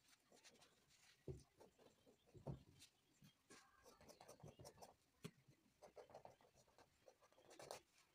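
Faint scratching and dabbing of a paintbrush on canvas, a run of small irregular strokes and taps, with a couple of soft knocks about one and two and a half seconds in.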